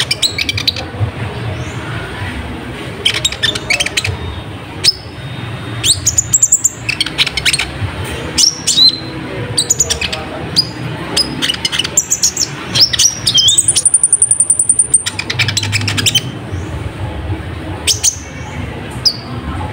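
Kolibri ninja sunbird singing energetically in quick bursts of very high chirps and rapid trills, with one long, even high trill a little past the middle. This is lure song (pancingan) meant to provoke other sunbirds into singing.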